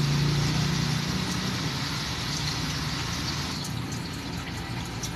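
Pot of water on the boil on a stove, a steady bubbling hiss.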